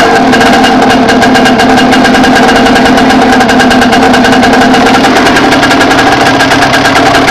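Dirt bike engine running steadily at a low, even pitch, loud and close to the microphone.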